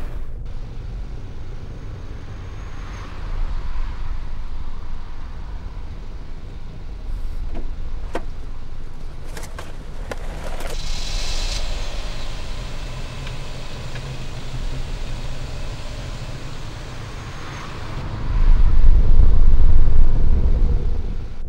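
Low rumble of a car engine running, with a few sharp clicks and a short hiss about halfway through, and the rumble swelling much louder near the end.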